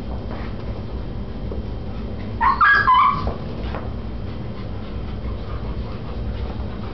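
Dogs play-wrestling; about two and a half seconds in, one dog gives a brief high-pitched cry in two quick parts.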